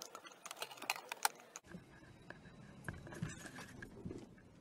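Light irregular rattling and clicking for about a second and a half. The sound then cuts off abruptly to a faint low rumble inside a vehicle, with a few soft knocks from a camera being handled and turned.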